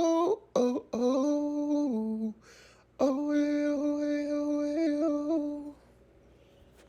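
A singer humming wordless notes unaccompanied: a few short gliding phrases, then after a brief pause one long held note with small steps in pitch. It stops about a second before the end.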